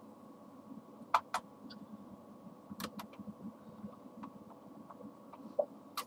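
A few light, sharp clicks of a small screwdriver and fingers working the plastic hotkey ribbon-cable connector of an ASUS N71JQ laptop: two about a second in, two near three seconds, one near the end.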